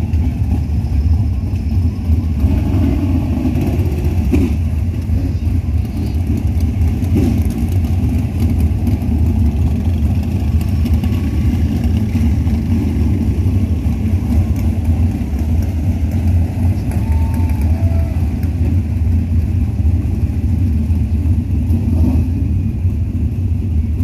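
410 sprint cars' V8 engines running at low revs, a loud, steady deep rumble.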